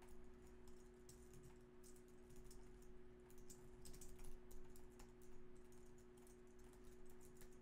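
Faint typing on a computer keyboard: irregular, quick keystroke clicks, over a low, steady hum.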